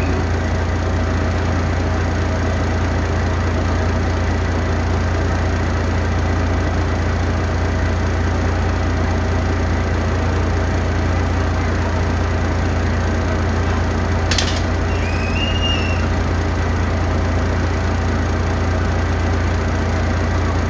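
Steady engine rumble of an idling vehicle, with a sharp click about fourteen seconds in and a short high chirp just after it.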